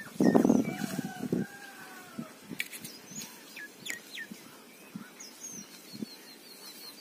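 Birds chirping and calling: short sweeping calls and sharp chirps, with a fast run of high notes near the end. A loud, rough, low call fills the first second and a half.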